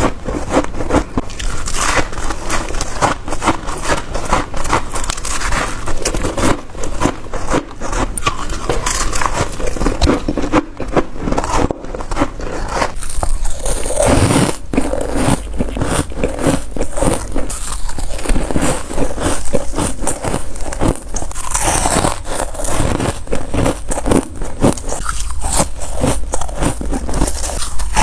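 Humidifier-grown freezer frost being bitten and crunched close to the microphone: a dense, continuous run of crisp crunches.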